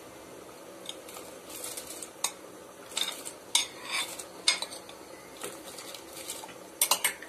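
Metal utensils clinking and scraping against a cooking pot in a run of irregular clatters, with a quick double clatter near the end, as soaked rice is tipped into boiling water. A steady low hiss runs underneath.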